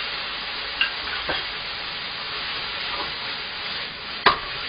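Udon stir-fry sizzling in a frying pan as the seasoning sauce of sake, mirin and soy sauce goes in, with a wooden spatula stirring and scraping. A few light clicks about a second in and a sharp knock near the end.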